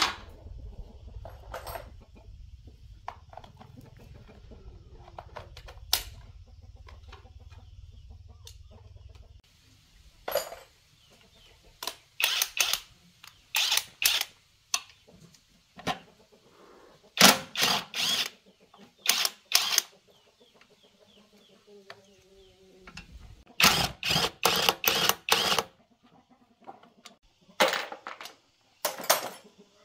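Cordless impact driver hammering in short bursts, run in clusters as it undoes the bolts on an air compressor's pump and motor. Chickens cluck in the background.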